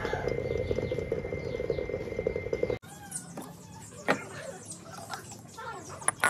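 Water boiling hard in a small electric pot under a glass lid: fast, dense bubbling with a faint steady high tone, cut off sharply about three seconds in. After that, quieter clinks and knocks of handling at the pot, with a sharp click near the end.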